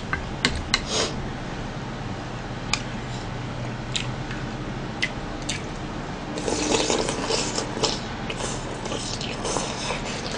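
Close-up eating sounds: a few sharp clicks of chopsticks against a bowl, then wet slurping and chewing of a mouthful of soup from about six seconds in.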